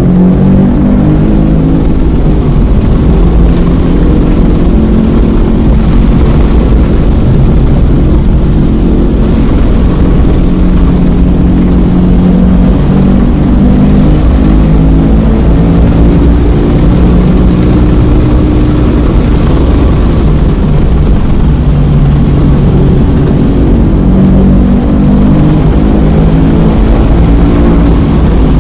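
Car engine heard loud from inside the cabin while the car is driven hard at speed. Its pitch climbs and drops in steps as the throttle is worked and gears are changed, over a constant rumble of tyre and wind noise.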